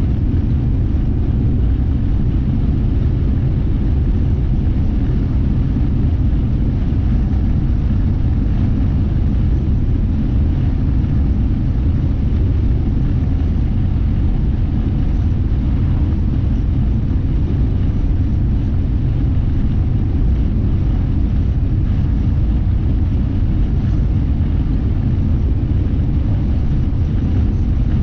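Steady low rumble of a car driving along a highway: road and engine noise heard from inside the cabin.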